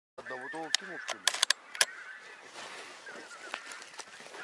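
Geese honking on the field, with a cluster of sharp clicks about a second in from a shotgun being handled.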